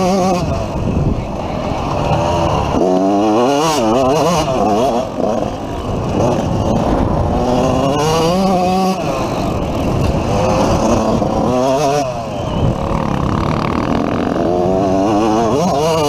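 Dirt bike engine ridden hard, its pitch climbing and dropping again and again as the throttle opens and closes through the gears. Picked up on a helmet-mounted camera.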